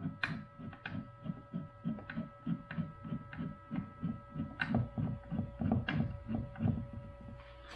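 Lathe carriage being moved by hand along its newly fitted ball screw, giving an even low rumbling pulse about four or five times a second that stops shortly before the end. A steady electrical hum runs underneath.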